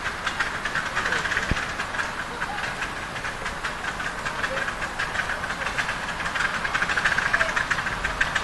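Miniature live-steam locomotive chuffing in quick, even beats as it pulls a loaded passenger train along the track.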